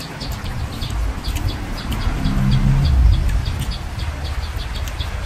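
Small birds chirping in quick, repeated short notes in the background, over a low rumble that swells about halfway through.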